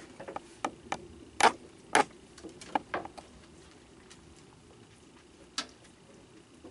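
Irregular sharp clicks and knocks of raccoons feeding on cookies on a wooden deck, bunched in the first three seconds with the two loudest about a second and a half and two seconds in, then one more near the end.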